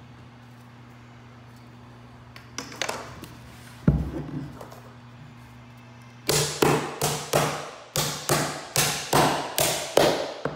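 Hammer driving the nails of a wooden carpet tack strip into a hardwood floor. A short clatter and one heavy knock about four seconds in, then a quick run of about a dozen blows, roughly three a second, from about six seconds in.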